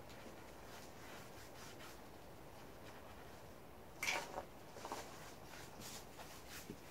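Mostly quiet room tone with faint brushing; about four seconds in, a few short scrapes and taps as a paintbrush is dipped and wiped in a small glass jar of sealer, followed by light brush strokes on the wooden stool.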